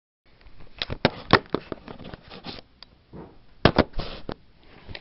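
Handling noise from a camera being held and positioned: a string of sharp knocks and clicks with rustling between them, the loudest a close pair about three and a half seconds in.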